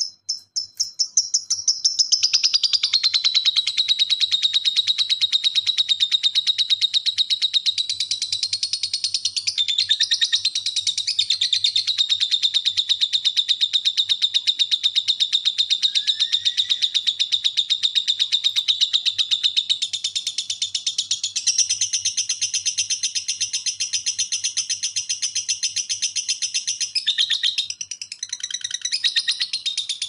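Lovebird ngekek: one long, unbroken, rapid high-pitched chattering trill. About two-thirds of the way through it shifts higher, and it breaks up into shorter phrases near the end.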